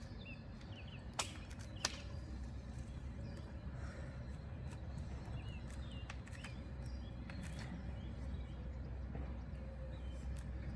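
Two sharp clicks a little over half a second apart, about a second in, from Springfree trampoline fibreglass mat rods being pushed and locked into their sockets, over a low rumble with small bird chirps scattered throughout.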